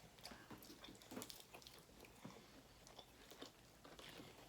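Faint chewing and biting of chicken nuggets, with scattered soft crunches.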